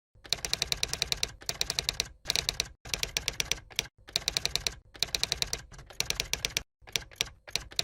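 Rapid keyboard typing clicks, coming in bursts of about a second with short pauses between them.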